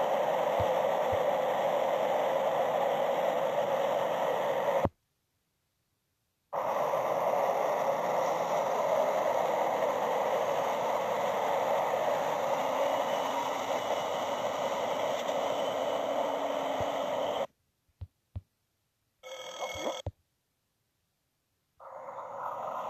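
TER regional train passing through a station at speed: a steady rushing noise of wheels on rails. The sound cuts out completely for about a second and a half, five seconds in, and again after about 17 seconds, with a brief burst of sound near 19 seconds and sound coming back near the end.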